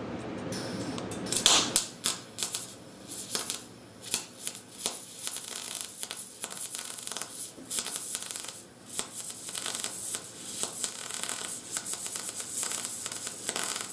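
MIG welder arc on steel, shielded with argon gas: an irregular crackle and sizzle starting about half a second in and running in uneven spurts with brief dips. The welder afterwards judges that the wire feed speed needs turning up.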